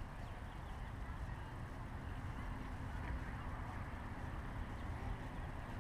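Steady low rumble of wind buffeting a GoPro camera's microphone, with a few faint distant calls.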